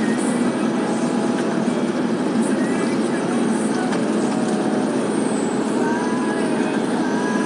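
Steady noise of heavy traffic, buses and trucks running along a highway, with faint held tones appearing about six seconds in.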